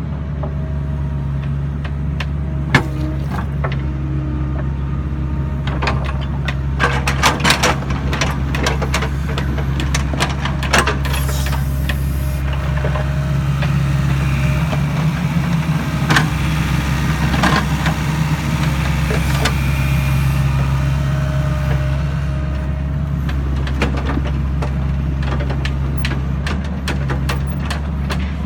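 Sany SY55C mini excavator's diesel engine running steadily under work, with a cluster of sharp knocks and clanks from about six to twelve seconds in and a few scattered ones after.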